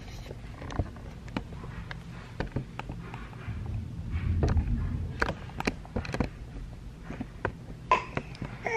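Phone microphone handling noise as the phone is carried around: scattered clicks, knocks and rustles over a low rumble, with a short high-pitched squeal near the end.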